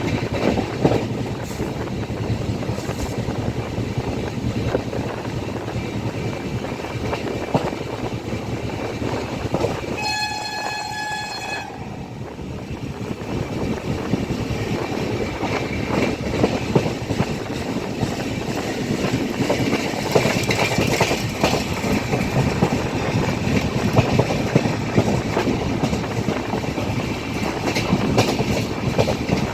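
Passenger train running, with the steady rumble and clatter of the coach over the rails. About ten seconds in, the train's horn sounds once, a single held note lasting about a second and a half.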